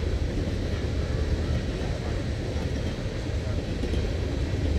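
Norfolk Southern freight train's tank cars rolling past, a steady low rumble of wheels on rail.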